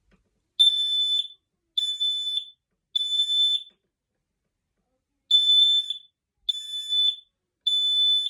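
Smoke alarm sounding during its test: six high-pitched beeps, in two groups of three with a pause between the groups, the standard three-beep evacuation pattern.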